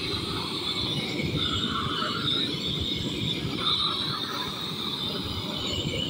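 Gas cylinder-fed blowtorch burning with a steady rushing noise as its flame heats the back of a modified-bitumen waterproofing membrane, melting the bitumen so the sheet sticks to the wall.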